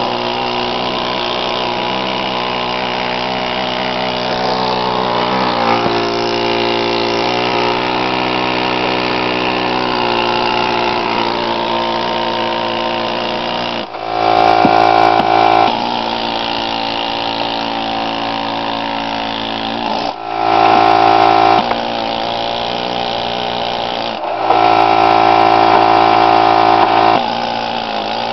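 Handheld power tool with a long bit running steadily as it works into the mortar joints of a brick chimney. It gets louder three times, for one to three seconds each, as the bit bears harder into the brickwork.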